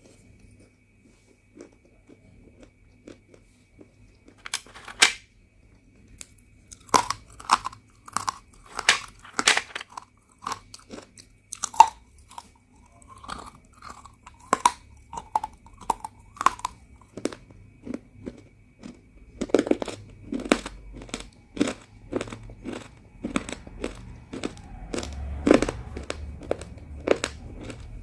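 Pieces of roasted multani mitti (Fuller's earth clay) being bitten and chewed close to the microphone, giving sharp crunches. Mostly quiet for the first few seconds, then crunching starts and becomes fast, steady chewing in the second half.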